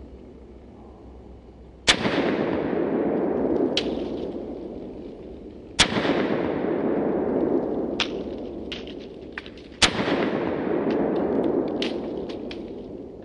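Three shots from a Harrington & Richardson .32 ACP self-loading pistol, about four seconds apart, each followed by a long echo dying away over a couple of seconds. Fainter sharp clicks come between the shots.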